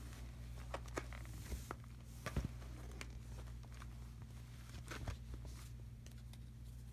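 Cardboard packaging being handled and shifted about: scattered light knocks, scrapes and rustles, the sharpest a little past two seconds in and again about five seconds in, over a low steady hum.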